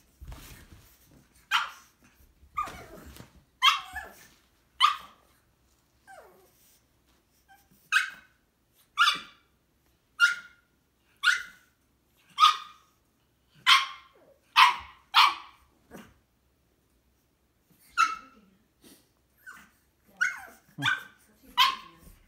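Pug puppy barking over and over, short sharp barks about one a second, with a pause of about two seconds partway through.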